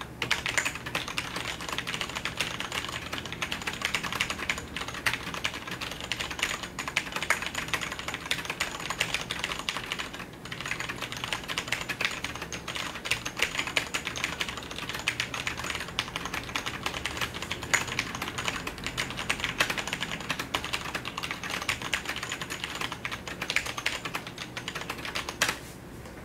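Continuous fast typing on a Cherry G80-3000 mechanical keyboard with Cherry MX Brown switches, a dense stream of key clicks with short pauses, stopping shortly before the end.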